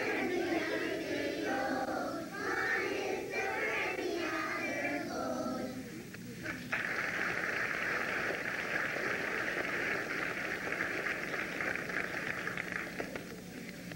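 Children's choir singing, the song ending about five seconds in. About a second later comes steady audience applause that fades near the end, heard through a worn VHS recording.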